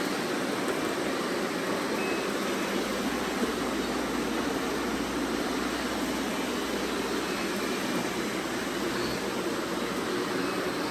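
Robot vacuums running: a steady whirring hum of suction motors and brushes.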